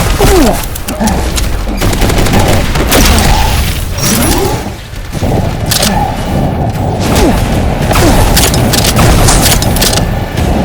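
Loud, dense booms and rapid volleys of shot-like cracks over music, with a short lull about five seconds in.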